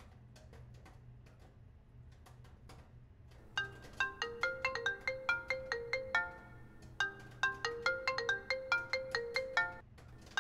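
iPhone ringtone signalling an incoming call: a quick melodic phrase of bright pitched notes, starting about three and a half seconds in, pausing briefly, then repeating. Before it, only faint scattered ticks.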